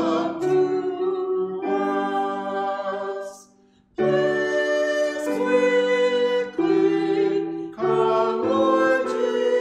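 A hymn sung by two voices with piano accompaniment, held notes moving from chord to chord. The music stops for about half a second a little over three seconds in, then starts again on the closing line.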